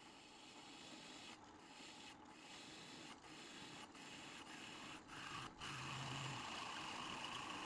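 Drill press driving a freshly sharpened 13 mm twist drill through metal plate: a steady scraping, cutting noise that grows gradually louder. It is the sound of a sharp bit cutting effectively.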